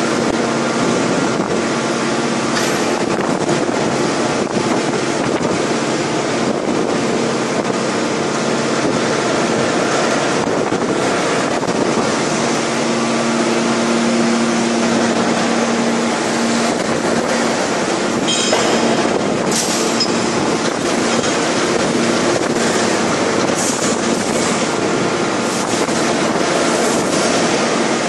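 A 5000-ton hydraulic open-die forging press working a red-hot steel forging: a loud, steady industrial din with a constant hum that swells for a few seconds partway through. A few short, sharp cracks or clanks come about two-thirds of the way in.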